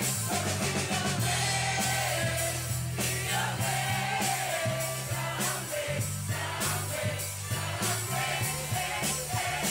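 A live street band playing amplified pop-rock music: drums with cymbals, a steady bass line and singing. The music cuts off abruptly at the very end.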